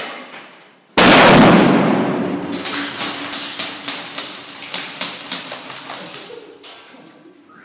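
Airsoft stun grenade going off with a single loud bang about a second in, followed by several seconds of rapid crackling pops that die away.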